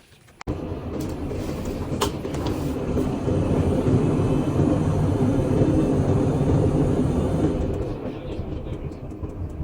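Haier washing machine running its drum self-clean cycle: a steady low mechanical rumble of the turning drum that starts suddenly about half a second in, builds, and eases off near the end.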